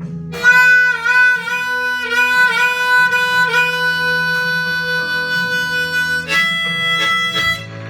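Blues harmonica playing an instrumental fill over acoustic guitar, with bending, wavering notes, starting about half a second in and closing on a held note near the end.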